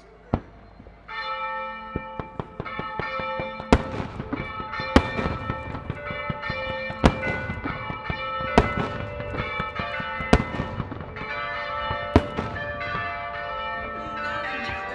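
Church bells pealing, with fireworks bursting through the ringing: one pop near the start, then about six sharp bangs, one every second and a half to two seconds.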